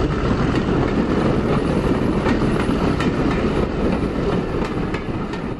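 A train running along the track: a steady rumble with wheels clicking irregularly over the rail joints, beginning to fade near the end.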